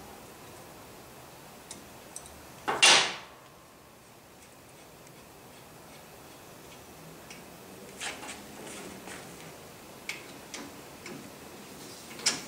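Small metal clicks and clinks from a brake caliper and its mounting bolt being handled and fitted by hand, scattered through the second half. One louder, sharp noise about three seconds in.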